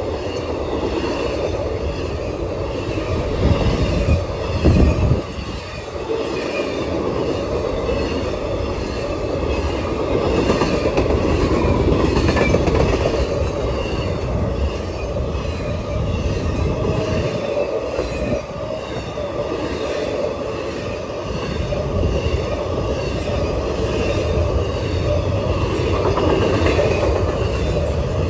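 BNSF intermodal freight train's cars rolling past at speed: a steady rumble of steel wheels on rail with fainter higher ringing, and a brief louder low swell about four seconds in.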